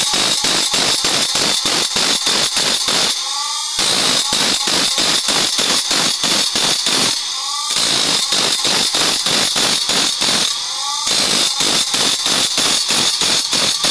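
Bench grinder's abrasive wheel grinding a steel blade, with a steady high hiss. Under it plays background music with a fast even beat of about five a second, which breaks off briefly three times.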